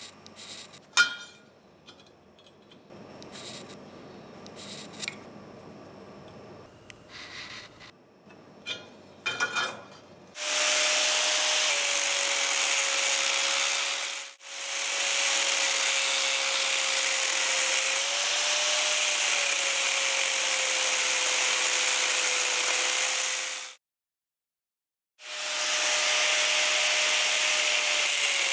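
An angle grinder with a thin abrasive cut-off disc cuts into steel square tube, a loud steady hiss over a held motor whine. It starts suddenly about a third of the way in, breaks off into dead silence for about a second and a half near the end, then runs again. Before it there are only a few faint clicks and scratches.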